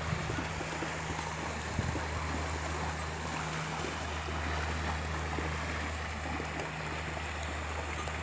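Water buffalo wading through shallow water, with an even wash of water and wind noise and a steady low hum underneath; a single low thump about two seconds in.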